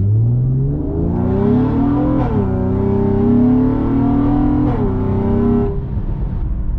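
Honda car's engine and catless exhaust pulling hard under heavy throttle. The engine note rises, drops sharply at an upshift about two seconds in, climbs again to a second upshift near five seconds, then falls away as the throttle is lifted.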